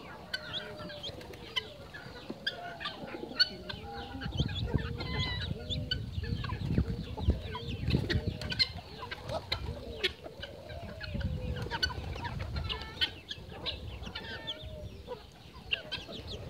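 Young Belgian d'Uccle bantam chicks peeping and clucking, many short gliding calls overlapping throughout. A low rumble runs underneath from about four seconds in to about thirteen.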